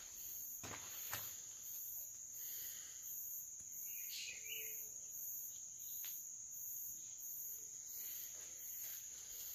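Insects calling in dense vegetation: a steady high trill with a higher chirp pulsing over it at about one to two a second. A couple of faint crackling steps on dry leaf litter sound about a second in.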